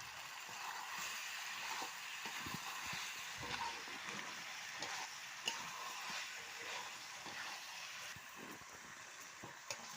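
Spiced chicken sizzling in its own released oil in a pan, a steady frying hiss with scattered light crackles and a sharper tick about five and a half seconds in; the meat is fully browned (kashano) and ready for water.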